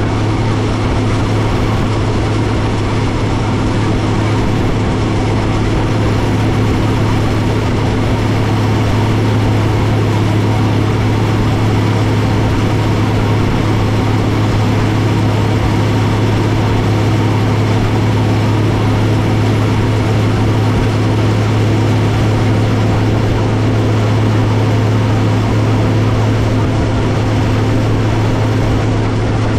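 Allis-Chalmers 7095 tractor's diesel engine running steadily under load while pulling a forage chopper through hay, heard close to the exhaust stack as an even, unchanging low drone.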